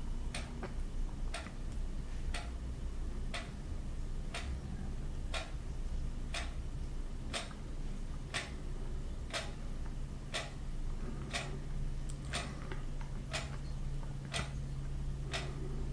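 Clock ticking steadily, about once a second, with fainter ticks between the main ones.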